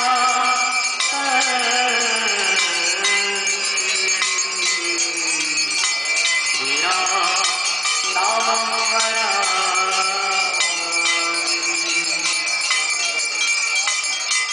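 Hand bells ringing continuously in a dense jangle under a male voice singing a slow Hindu aarti hymn with long, drawn-out notes that glide between pitches.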